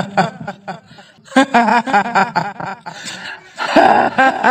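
Horror sound effect of wavering, high-pitched cries broken into quick short bursts, in two spells of about a second each.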